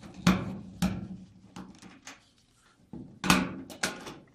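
Sharp clunks and small clicks of a wire and tools being handled against a clothes dryer's sheet-metal cabinet at its power-cord terminal block. The knocks come in two pairs about half a second apart, each with a short low ring.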